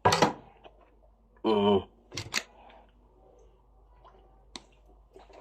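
A short voiced sound about a second and a half in, followed by two sharp clicks just after two seconds and a fainter click later; otherwise quiet room tone.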